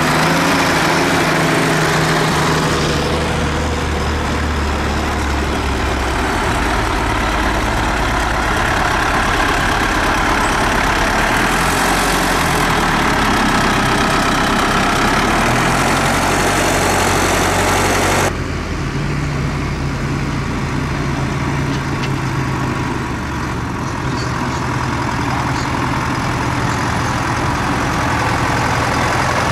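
Zetor tractor diesel engines running as the tractors drive past one after another. The engine note changes abruptly about two-thirds of the way through.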